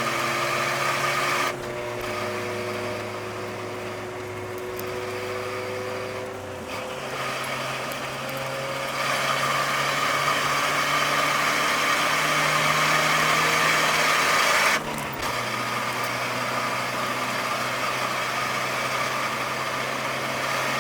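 Nissan S13 240SX's four-cylinder engine running under way, heard from inside the car, its note and loudness changing with throttle and gears: a drop about a second and a half in, a rise about seven seconds in, and a sharp drop about fifteen seconds in.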